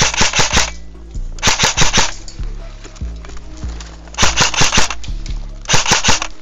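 Airsoft gun firing in four short bursts of three or four rapid sharp shots each, over background music with a steady low drone.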